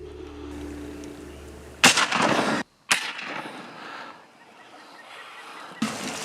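A steady low hum, then a sudden loud burst of noise about two seconds in that cuts off abruptly, followed by quieter noise.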